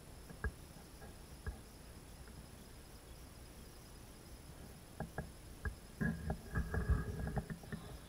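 Footsteps and handling knocks on a handheld camera moving through a dark hallway: two single knocks early, then a cluster of thuds and knocks from about five seconds in, over a faint steady high hiss.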